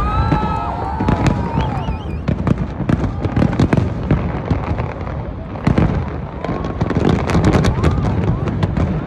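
Aerial fireworks display: a dense run of sharp bangs and crackling bursts over a steady low rumble.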